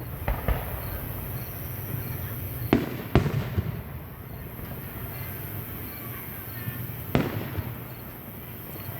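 Fireworks going off: a series of sharp bangs, a pair near the start, two more about three seconds in (the loudest), and another a little after seven seconds, each trailing off in an echo.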